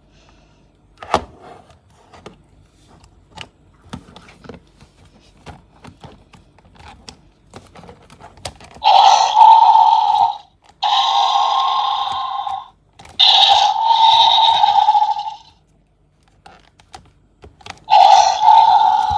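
Light clicks and knocks of packaging being handled, then a loud electronic dinosaur roar sounding four times in separate blasts of about two seconds each.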